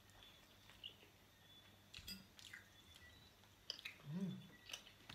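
Faint chewing of pepperoni pizza with scattered soft mouth clicks, and a brief low hum from a voice about four seconds in.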